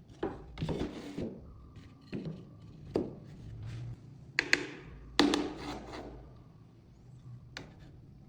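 Wooden pieces being handled and knocked together: a string of irregular knocks and thunks, the loudest a pair of sharp knocks about four and a half seconds in and a heavier knock just after five seconds.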